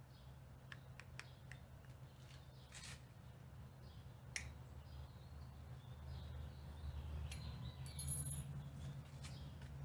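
Scattered light clicks and taps of plastic PVC pipe caps being handled, with a sharper click about four and a half seconds in, over a steady low outdoor rumble. Faint high chirps come near the end.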